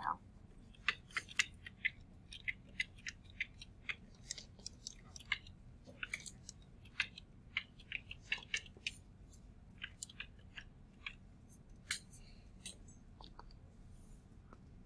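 Faint stylus tapping and scratching on a touchscreen during handwriting: an irregular run of quick ticks and short strokes that stops near the end.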